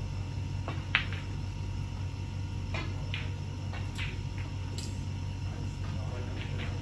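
Snooker balls clicking during play: one sharp click about a second in, then several fainter knocks over the next few seconds, over a steady low hum.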